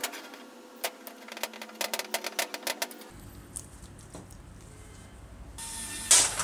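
Metal clicks and clinks as a two-jaw bearing puller is fitted and tightened over the bearing on an electric drill's armature shaft. Near the end comes a short, loud burst as a cordless screwdriver drives the puller screw.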